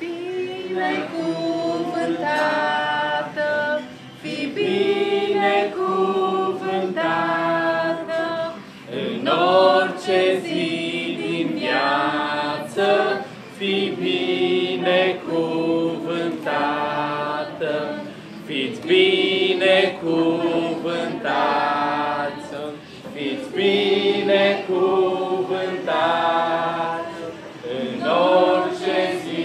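A group of voices singing a cappella, a blessing song in held notes and phrases of a second or two with short breaks between them.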